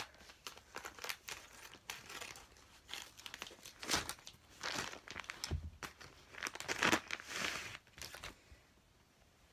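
Plastic mailer bag crinkling and tearing as it is cut and pulled open with scissors, in irregular bursts that are loudest about four and seven seconds in and die away near the end.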